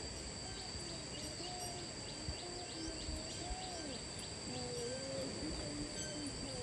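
Countryside ambience: a steady, high-pitched insect drone with many quick bird chirps, and short, lower gliding animal calls over a low rumble.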